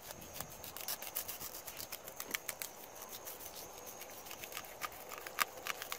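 Fillet knife cutting along a blackfin tuna's backbone: an irregular run of sharp crackling clicks and crunches as the blade goes through the rib bones. A steady high insect chirring runs underneath.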